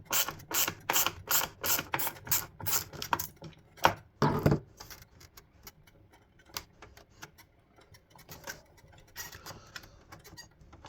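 Ratchet tool clicking rapidly, about five clicks a second, stopping about three seconds in. A single knock follows, then a few light clicks of parts being handled.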